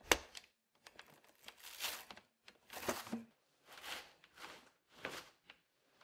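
A sharp plastic click as the brush bar end cap on a Dyson 360 Vis Nav robot vacuum is pressed and released, followed by several short bouts of plastic scraping and rustling as the brush bar and its housing are handled.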